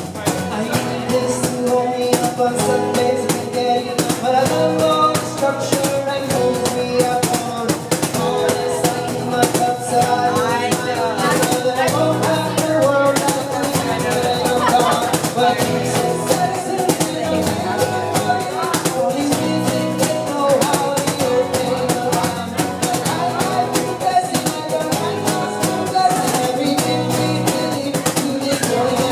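Acoustic band playing live: acoustic guitars strummed in a steady rhythm, with voices singing.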